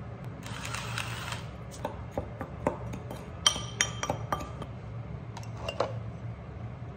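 Sugar spooned into a glass bowl with a short sandy hiss, then a metal spoon clinking and scraping against the glass bowl as it stirs sugar into kinako, several of the clinks ringing briefly. A couple of softer knocks follow near the end.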